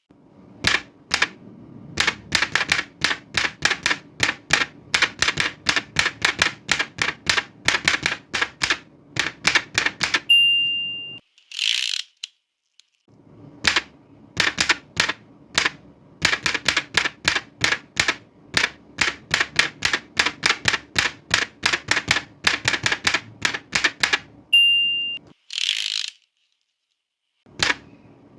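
Old manual typewriter being typed on in steady runs of about four keystrokes a second. About ten seconds in, and again near the end, the end-of-line bell dings and the carriage is swept back before typing starts again.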